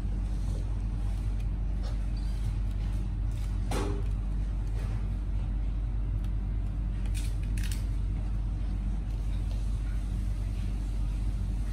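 A steady low electrical hum with several fixed tones. Over it come a few faint clicks and scratches, one about four seconds in and two close together past the middle, from a kitten's claws on a sisal-rope scratching post.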